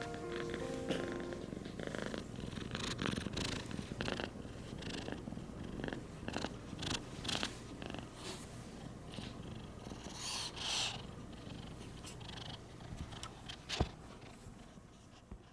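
A rescued kitten purring, a steady rough rumble close to the microphone, with a single sharp click near the end.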